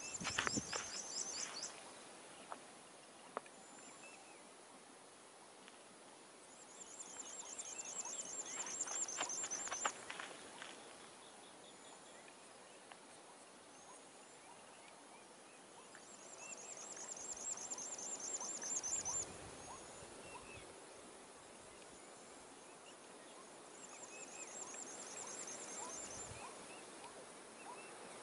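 Bird song outdoors: a high, rapid trill of repeated notes lasting three to four seconds recurs about every eight seconds, four times, with scattered short chirps between. A few sharp clicks or snaps come near the start and about nine seconds in.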